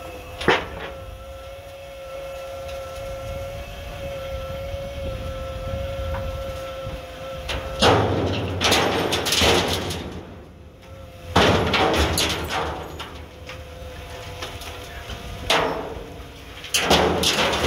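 Forklift rotator attachment tipping a dumpster over a roll-off container: a steady whine from the forklift's hydraulics with one sharp bang about half a second in. From about eight seconds, several loud crashing, clattering bursts follow as trash and wood pour out and the upturned dumpster bangs against the attachment.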